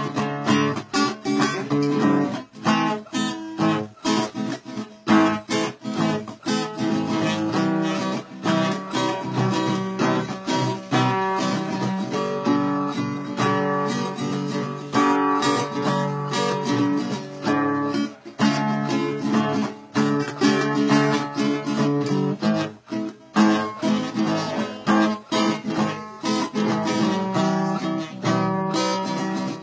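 Acoustic guitar being strummed, a steady run of chords.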